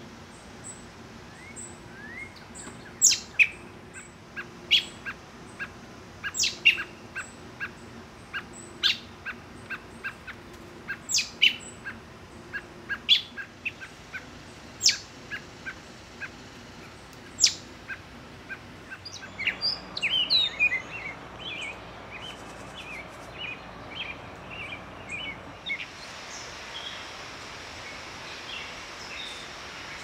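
Fledgling American Robin begging: sharp, high, brief calls repeated about once a second, then a quicker run of softer chirps.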